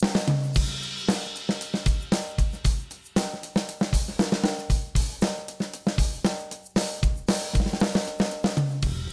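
Background music with a drum kit playing a steady beat of bass drum, snare and hi-hat.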